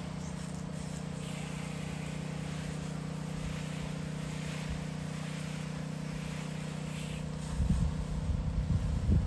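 Soft wash pump running with a steady hum while the wand sprays a light coat of conditioner onto siding, with a faint patchy hiss of spray. Irregular low rumbling comes in near the end.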